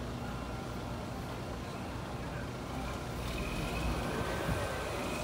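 Engine of heavy recovery machinery running steadily as a low rumble. A faint steady high whine joins about three seconds in.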